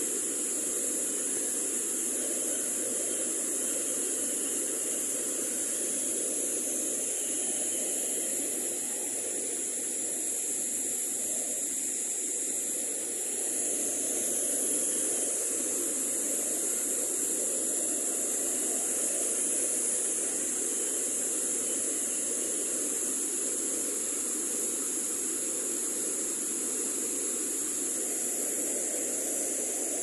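Mountain waterfall and stream rushing steadily over rocks, with a steady high-pitched hiss above it.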